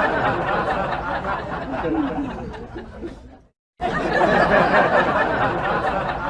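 A group of people chattering and laughing, with a sudden break in the sound about three and a half seconds in.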